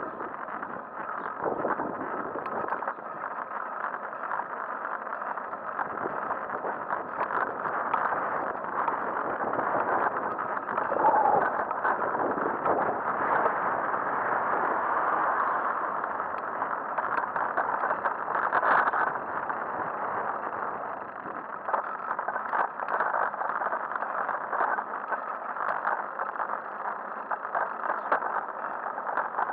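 Steady rushing wind on the microphone and tyre noise of a bicycle-mounted camera riding on asphalt, with frequent small rattling clicks.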